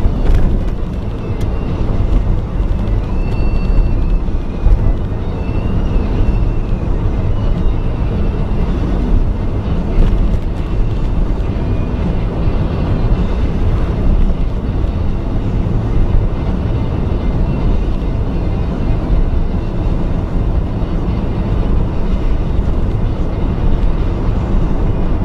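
A vehicle on the move: a steady low rumble of engine, road and wind noise that holds at one level, with a few faint high tones early on.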